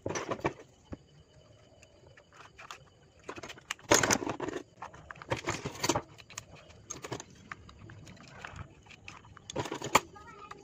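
Thin steel transformer core laminations clinking and scraping against each other as they are slid one at a time into a wound coil bobbin, in irregular clusters of clicks, loudest about four seconds in and near the end.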